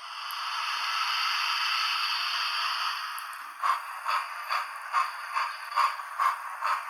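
Small speaker of a sound-fitted model steam locomotive: a steady steam hiss, then chuffing starts about three and a half seconds in at roughly two to three beats a second, thin and without bass.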